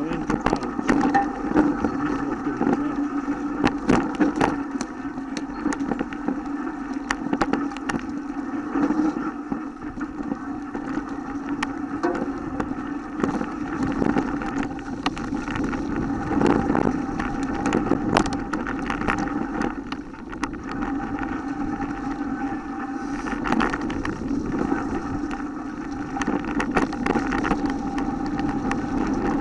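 Mountain bike rolling downhill on a dirt trail strewn with dry leaves: a steady rumble of tyres and wind, broken all the way through by quick clicks and knocks as the bike rattles over bumps.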